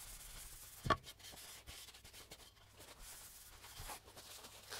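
Dry paper towel rubbing over an oiled wooden cutting board in a quick wipe-down that takes off the last excess oil, a faint rubbing hiss, with a soft knock about a second in.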